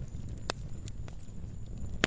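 Wood fire crackling: a low steady rumble of burning logs with scattered sharp pops and snaps, the loudest about a quarter of the way in.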